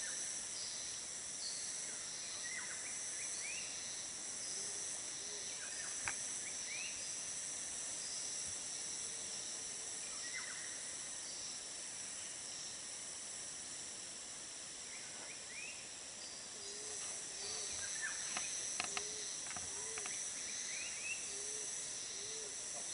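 Forest ambience: a steady, high-pitched insect chorus of cicadas or crickets, with scattered short rising bird chirps. In the second half comes a run of low, evenly spaced hooting notes.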